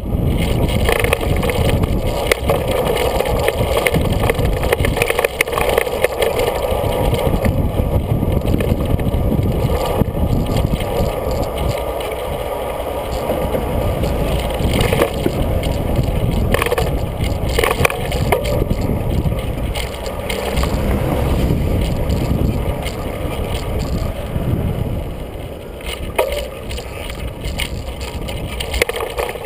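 A bicycle in motion, heard from a camera mounted on the bike: steady rumble of tyres on the road, with frequent short knocks and rattles as it goes over bumps.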